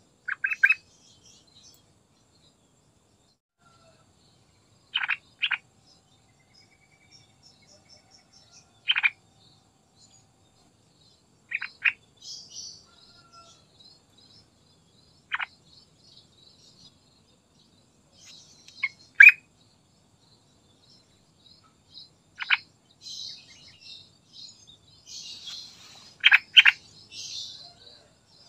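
Yellow-vented bulbul giving short, sharp call notes, single or in quick pairs, every few seconds. Fainter high chirping runs between them and grows busier near the end.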